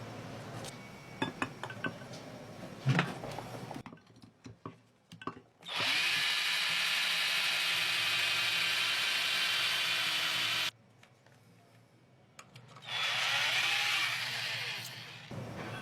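A small electric motor whirs steadily for about five seconds and cuts off abruptly, then runs again for about two seconds with its pitch shifting as it speeds up and slows. A few light clicks come before it.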